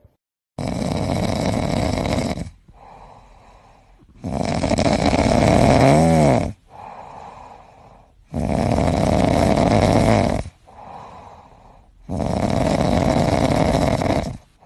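A cat snoring loudly: four long snores of about two seconds each, evenly spaced, with quieter breaths between them.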